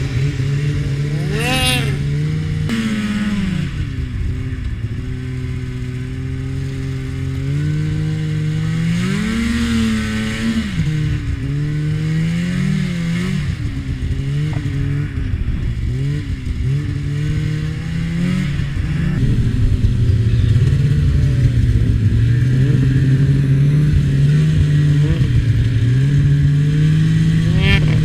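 Snowmobile engine running under way, its pitch rising and falling with the throttle. It gets somewhat louder about two-thirds of the way through.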